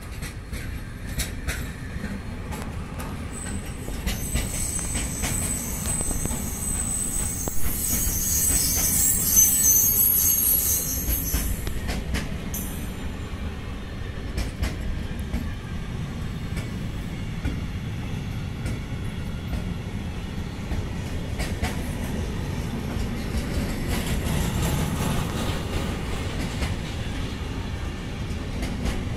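Freight train wagons rolling past, wheels rumbling over the rails with scattered clicks from the rail joints. A high-pitched wheel squeal rises about four seconds in and stops about twelve seconds in.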